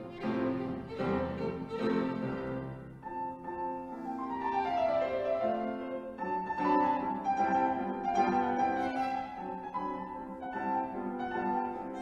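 Violin and grand piano playing classical music together. Busy piano chords fill the first few seconds, then the melody falls about four seconds in before the violin holds higher notes over the piano.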